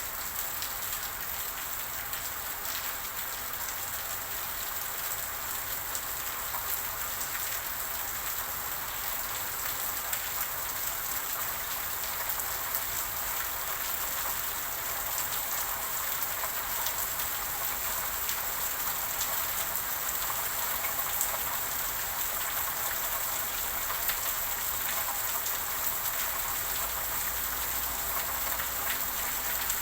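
Steady rain falling on a surface, a dense even hiss with many small drop ticks.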